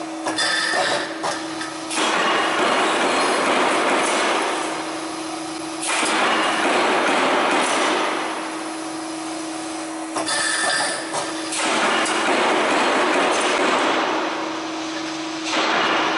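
Corner bead roll forming line running in stop-and-go cycles: spells of about four seconds of steady rolling noise as the steel strip feeds through the forming rolls, broken by quieter pauses with sharp clicks and knocks from the punching station. A steady hum runs underneath throughout.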